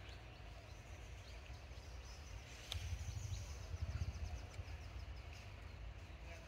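Outdoor ambience: a low rumble that swells a little mid-way, with faint bird chirps and a quick run of high, fast ticks, and a single sharp click about three seconds in.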